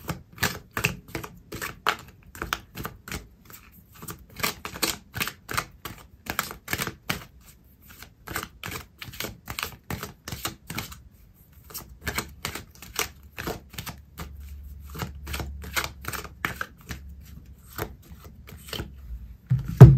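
Oracle card deck shuffled by hand: a long run of quick, irregular clicks and taps, several a second, with a few short pauses, ending in one loud knock.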